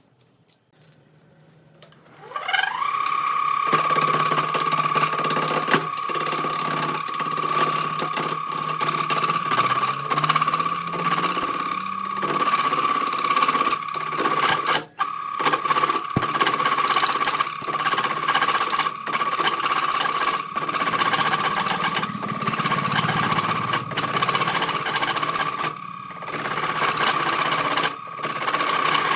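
Handheld electric power tool spinning up with a quickly rising whine, then running at a steady high pitch while working wood. The level drops briefly every second or so, and once near the middle, as the tool eases off the work.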